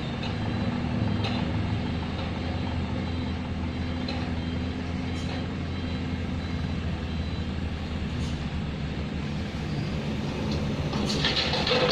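Heavy diesel machinery at a quarry, an excavator and dump truck, running steadily with a low engine drone. A louder rushing noise comes in about a second before the end.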